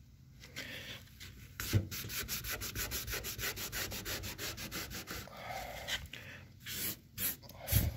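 A wad of paper towel rubbed quickly back and forth along a truck's painted steel door, wiping petroleum jelly off fresh spray paint. It is a fast, even run of rubbing strokes, several a second, that turns into a few looser rubs later on, with a thump as the rubbing starts and another near the end.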